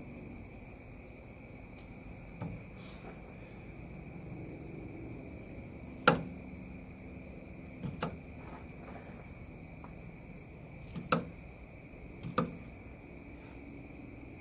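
Crickets chirring steadily and high-pitched in the night background. Over them come several sharp knocks of a fillet knife and fish against a plastic cutting board as a small fish is filleted; the loudest knock is about six seconds in.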